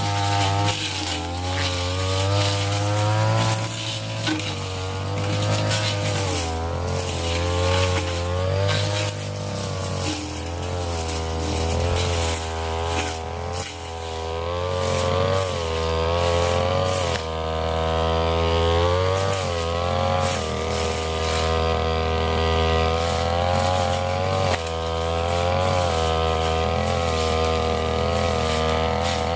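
Brush cutter engine running at high speed while cutting thick brush; its pitch keeps dipping and recovering every second or two as the blade bites into the growth.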